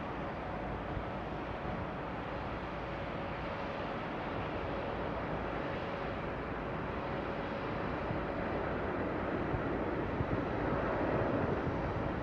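Airbus A380 on approach, its four jet engines making a steady rumble and hiss with a faint steady tone, growing a little louder after about eight seconds as it nears.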